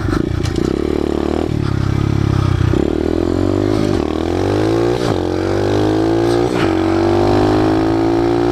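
SSR 125 pit bike's single-cylinder four-stroke engine accelerating through the gears: its pitch climbs again and again, with brief breaks at gear changes about four, five and six and a half seconds in, then rises slowly toward the end.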